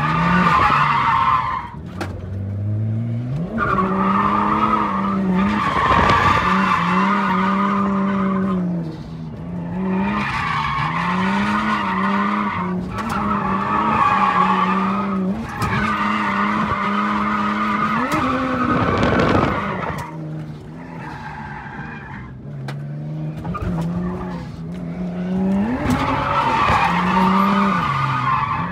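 A drift car's engine held high in the revs while its rear tyres squeal in long, repeated slides, each a few seconds long, with the engine pitch dipping and climbing again between them.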